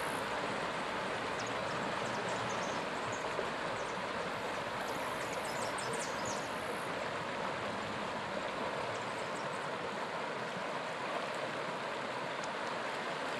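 Steady rushing of a rocky mountain river flowing over stones.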